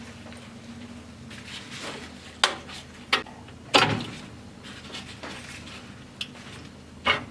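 Five sharp knocks and clunks of household handling, the loudest about halfway through, over a low steady hum.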